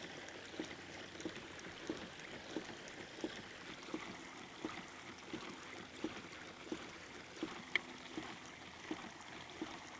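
Kayak paddle strokes dipping into the water at an even pace, about three every two seconds, over a faint steady wash of water along the hull, with one sharper click about three-quarters of the way through.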